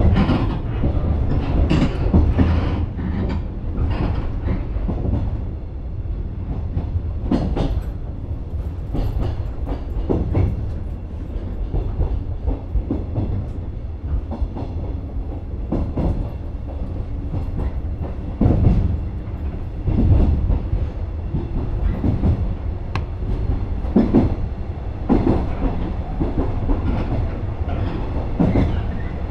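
Electric commuter train running along the track, heard from inside the driver's cab: a steady low rumble of wheels and running gear, with irregular clacks as the wheels pass over rail joints.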